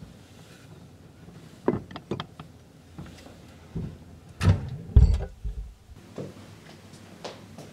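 Kitchen cabinet doors being handled: a run of irregular knocks and clatters, with two heavy thumps about four and a half and five seconds in, the loudest of them.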